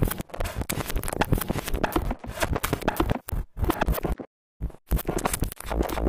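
Experimental noise music: harsh scratching and scraping noise in choppy, uneven bursts, broken by abrupt cuts to dead silence, the longest about four seconds in.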